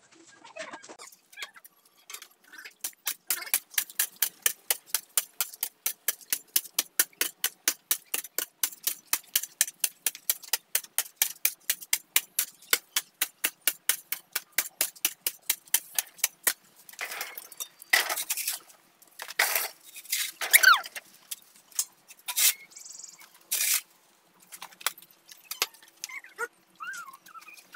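Steel hoe chopping into hard, dry soil: a long run of sharp, evenly spaced strikes, about four a second. Near the end come a few louder, irregular scrapes and knocks.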